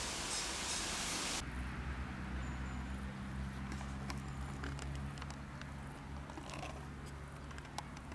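Outdoor field ambience: a dense hiss that cuts off abruptly about a second and a half in, then a faint low steady hum with a few scattered small clicks.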